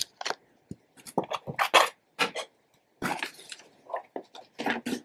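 Cardboard shipping box being handled and its flaps opened: a run of short, irregular scrapes and rustles.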